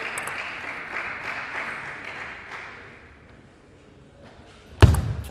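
Applause in a table tennis hall after a point, fading away over the first three seconds. Near the end, a single sharp, loud knock as the next serve is played.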